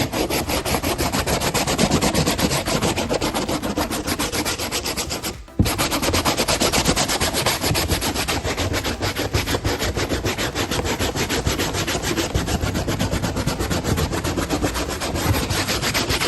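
A wire brush scrubbed rapidly back and forth over a car headliner board, scraping off the old degraded foam backing. The strokes are quick and even, several a second, with a brief pause about five and a half seconds in.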